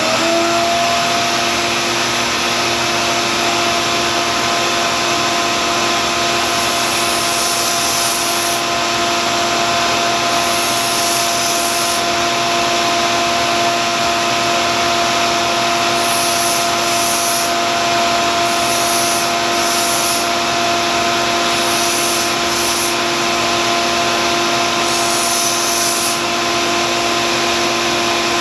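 A 1x30 belt sander comes up to speed and runs steadily, along with a shop vacuum for dust suction. From about six seconds in, the steel blade of a vintage Wüsthof kitchen knife is pressed to the fresh 120-grit belt in short grinding passes every second or two, setting the profile of a new tip.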